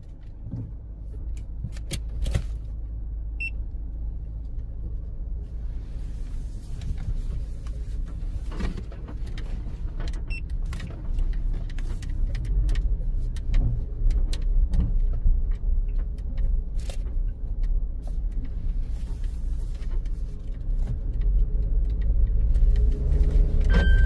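Cabin noise of a Suzuki Jimny driving slowly: steady engine and tyre rumble with scattered clicks and rattles, growing louder toward the end. Right at the end the seat belt reminder starts beeping, set off by the weight on an unbelted rear seat.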